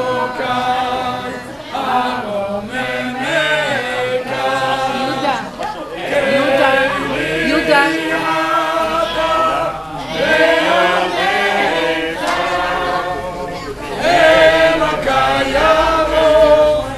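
A group of men singing a Hasidic niggun together without instruments, the melody carried in long held and gliding notes, swelling louder about six and again about fourteen seconds in.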